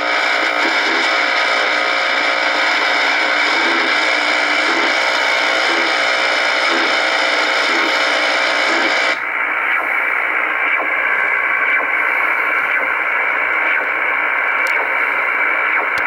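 Shortwave static from a communications receiver tuned near 4.5 MHz, where CODAR coastal ocean radar is heard as a pulsing pattern repeating under the hiss. About nine seconds in, the hiss suddenly turns duller, losing its upper part, as the receiver is switched from AM to USB.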